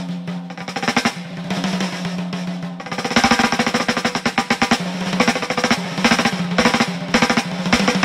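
Soundtrack music with fast, busy drumming over a held low note; it gets louder about three seconds in.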